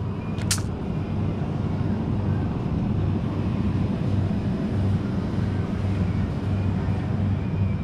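A short rattle of a mesh bag of aquarium river stones about half a second in, over a steady low hum of the store's background noise.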